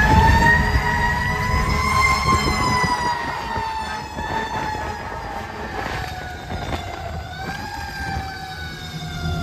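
A Federal Q2B mechanical siren on a fire truck, heard from inside the cab, winding up to a high wail about two seconds in and then slowly winding down. It briefly picks up again about seven seconds in.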